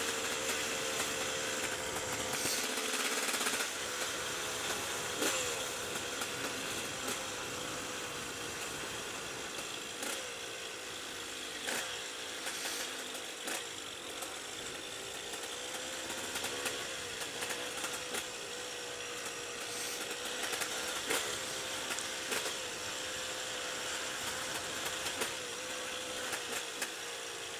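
KTM EXC 125's single-cylinder two-stroke engine running under way, its buzzing pitch rising and dipping as the throttle is opened and eased off, over a steady hiss.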